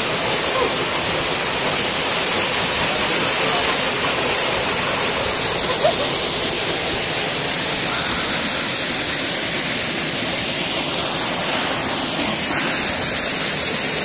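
Waterfall spilling down a rock face: a steady, even rush of falling water.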